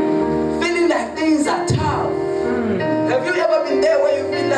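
Music with long held notes and a voice singing over them.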